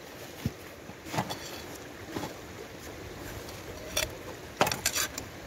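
Gear being handled in a rucksack and dry bag over the steady rush of a stream: scattered rustles and knocks, then a quick cluster of sharp clicks near the end as a steel bowl is lifted out.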